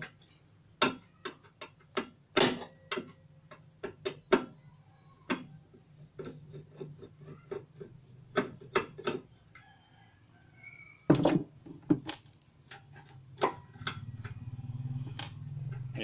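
Irregular sharp clicks and knocks of metal parts being handled as the thermostat is taken off a microwave oven's magnetron; a low steady hum comes in near the end.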